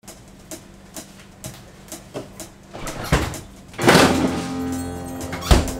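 Music: a sparse beat of sharp clicks about two a second, with low thumps, then fuller music with held chords coming in loudly about four seconds in.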